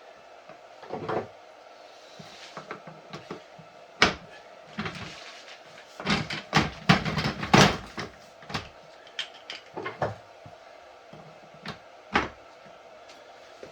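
Knocks, clicks and clatter of office chair casters being handled, pulled out of the chair base and the new hard-rubber caster stems pushed in. There is a sharp knock about four seconds in, a burst of rapid knocks a couple of seconds later and another single knock near the end.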